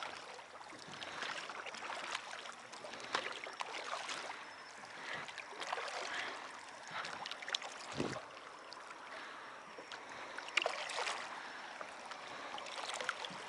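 Flowing river water making a steady rushing noise, with scattered small clicks and a single low thump about eight seconds in.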